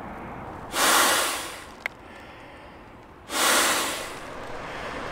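A man inflating a sleeping pad by mouth: two loud, rushing breaths about two and a half seconds apart, with a short click between them.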